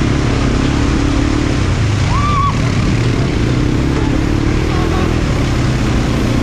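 ATV engine running steadily while being ridden, with a brief high-pitched sound about two seconds in.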